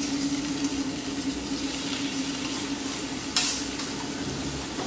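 Green beans and chicken sizzling in a skillet on a propane camp stove as the beans are tipped in and stirred, over a steady low hum. A single sharp clink of utensil on metal comes a little over three seconds in.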